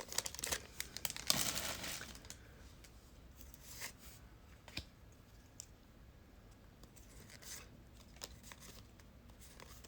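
Crinkling and tearing of a trading-card pack wrapper, loudest in the first couple of seconds, followed by faint scattered clicks and taps of cards being handled.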